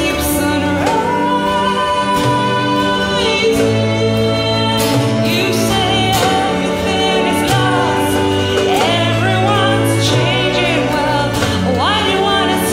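Live performance of a song by a small orchestra: violins, cello and double bass with an acoustic guitar, and a woman's voice singing a wavering melody over held string notes.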